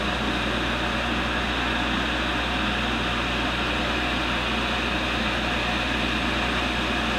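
A tool and cutter grinder running steadily, its motor humming and its wheel spinning with nothing against it.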